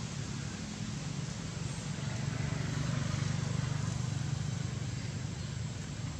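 A motor vehicle engine running nearby: a steady low rumble that swells a little in the middle.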